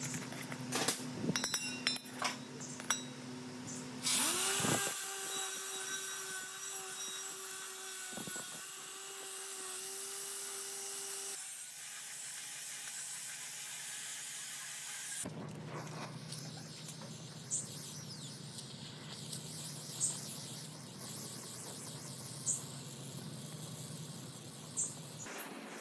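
Workshop power-tool sounds in several short edited clips. About four seconds in, an electric motor spins up and runs with a steady whine, then cuts off. Later comes a steady low hum with a few short sharp ticks.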